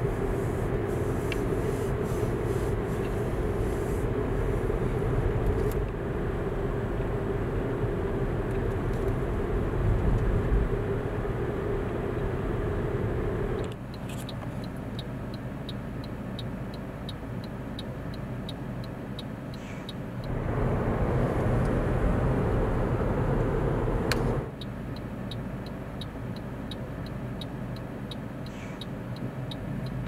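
Car driving along, heard from inside the cabin: steady engine and road noise. About halfway in, the noise drops suddenly and a turn signal starts ticking evenly, a little over twice a second. The ticking pauses for a few seconds, then carries on near the end.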